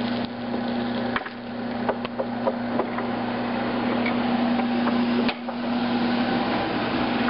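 Chinese screw oil press running while it crushes canola seed: a steady hum with continuous crackling over it, and a few sharp snaps scattered through.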